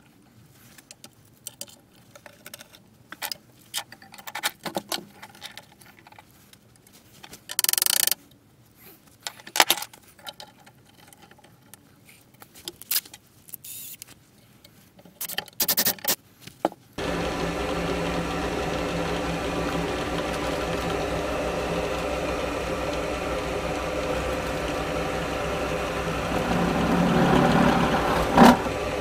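Steel parts being handled and clamped on a bench: scattered clicks and knocks, with a few short, louder noisy bursts. About two-thirds of the way in, a bench pillar drill's motor starts suddenly and runs steadily. It grows louder near the end as the bit is brought down into the steel section, and a sharp metallic knock comes just before the end.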